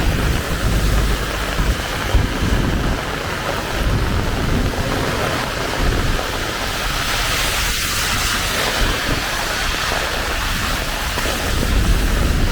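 Heavy rain falling steadily, with a low rumble of thunder underneath.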